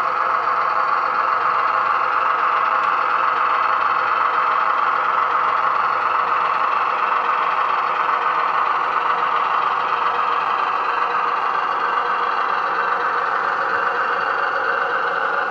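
Sound-decoder diesel engine sound of a Class 105 diesel multiple unit running steadily, played through the small on-board speaker of an OO gauge model train. It is steady and even, with little bass.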